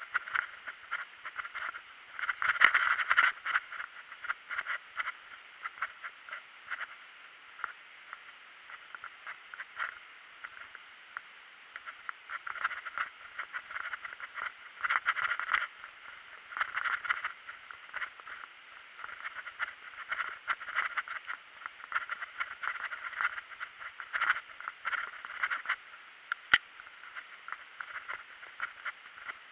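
Mountain bike rattling and clattering as it is ridden along a dirt singletrack trail, heard from a camera mounted on the bike or rider: a steady run of small irregular knocks and rattles from bumps and roots, with a louder cluster about two to three seconds in.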